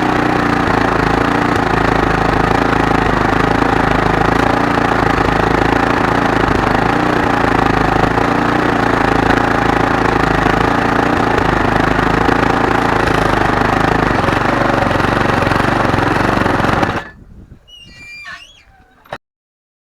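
Small lawnmower engine running steadily after repair, then cutting off suddenly about 17 seconds in, followed by a few faint thin squeaks before silence.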